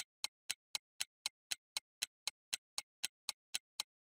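Clock-ticking sound effect: evenly spaced ticks, about four a second. It marks a timed pause for the viewer to try the problem.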